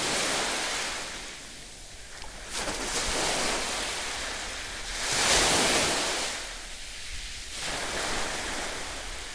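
Sea surf washing on a beach in rising and falling swells, with wind buffeting the microphone.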